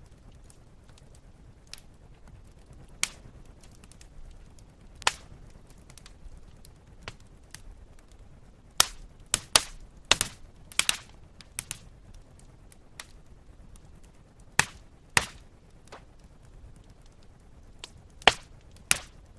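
Log fire crackling: scattered sharp pops and snaps over a soft low hiss, with a quick run of loud pops about halfway through. The audio is run through a vibrato effect.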